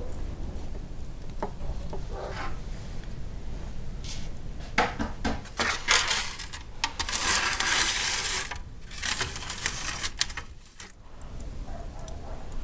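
Metal baking tray clattering and scraping as it is slid onto the hearth of a wood-fired brick oven, starting about five seconds in with a run of knocks and a longer scrape.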